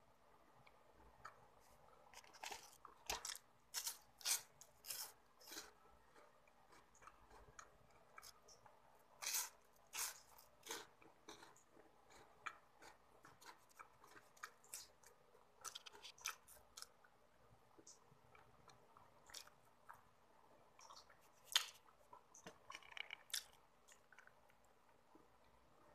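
Close-up mouth sounds of a person chewing a chocolate snack: irregular crisp crunches and wet chewing clicks, with no speech.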